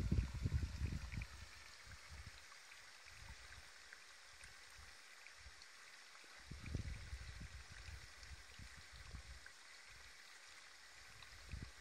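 Faint outdoor ambience: a steady soft hiss with a few tiny ticks. Low wind rumbles on the microphone during the first second and again around seven seconds in are the loudest part.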